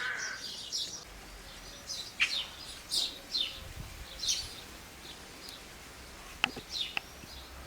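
Small birds chirping, with short high calls repeating throughout. Two sharp clicks come near the end.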